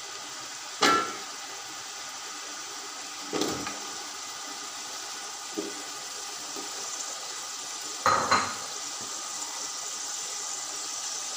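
Potato pieces going into a large aluminium pot of frying masala, with sharp ringing knocks on the metal pot about a second in, at three and a half seconds, and a double knock near eight seconds, under a steady sizzle of oil.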